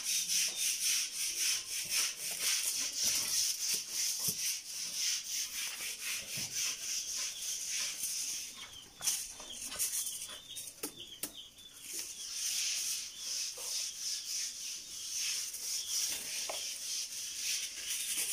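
Rhythmic scraping and rubbing of a spoon stirring and beating a thick mass of cooked beans in a large pot, with a hiss under the strokes. The stirring pauses for a few seconds about halfway, then starts again.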